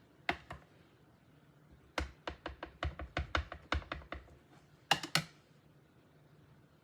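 A stamp tapped repeatedly onto an ink pad to ink it: a quick run of about a dozen light taps, then two sharp clicks about a second later.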